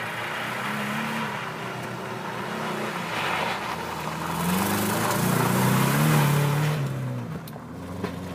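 Rally car engine at speed, its note climbing and swelling as the car comes close and passes, loudest a little past the middle, then dropping away.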